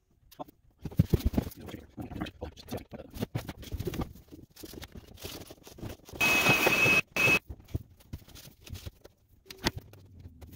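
Scraping, wiping and knocking from scrubbing dirt off a boat's bilge floor. About six seconds in, a shop vacuum runs loudly with a high whine for under a second, then once more very briefly.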